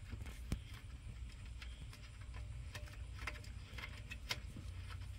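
Light, scattered metallic clicks and ticks of a half-inch lock nut being turned by hand onto a conduit fitting inside a sheet-metal disconnect box, over a low steady background rumble.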